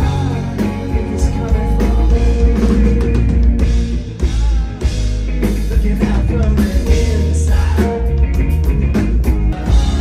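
Rock music with a drum kit, guitar and singing.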